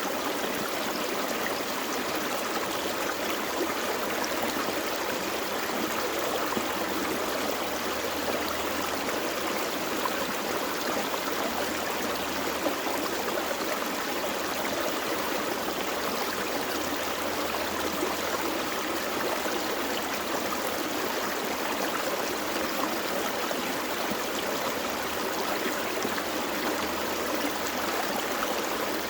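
A small forest stream flowing over rocks: a steady, even rush and burble of water, unchanging throughout.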